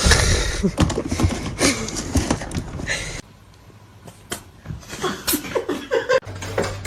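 A person laughing, with scattered taps and knocks; the sound drops away suddenly about three seconds in, then voices and taps return, and a low hum starts near the end.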